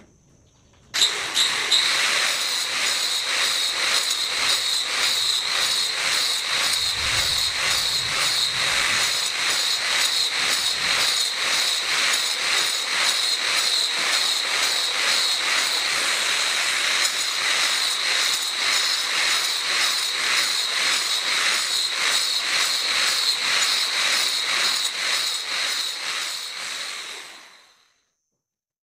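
Angle grinder with a turbo diamond blade cutting grooves into a cement-rendered concrete floor. It starts suddenly about a second in: a steady high whine over harsh grinding, with a fast even pulsing, then dies away near the end.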